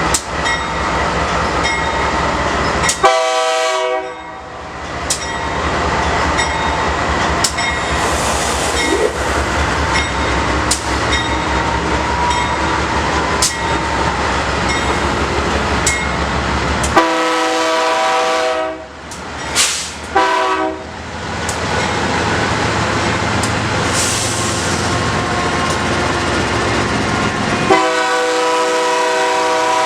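Freight train rolling past, wheels clicking over rail joints, while the locomotive's air horn sounds: a short blast about three seconds in, several blasts in the middle, and a long blast starting near the end.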